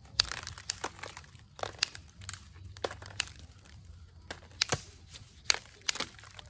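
Onondaga chert being knapped: a run of irregular sharp clicks and crackles as small flakes snap off the edge. The flaking is clearing limestone inclusions and other flawed material from one face of the stone.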